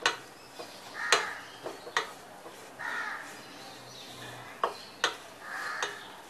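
A spatula stirring dry grated coconut as it roasts in a nonstick pan, with short scraping sweeps and several sharp taps of the spatula on the pan.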